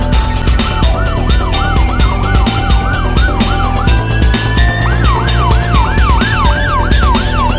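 Ambulance siren yelping in rapid up-and-down sweeps, about three a second, broken by one longer rising tone about four seconds in. Background music with a steady beat runs underneath.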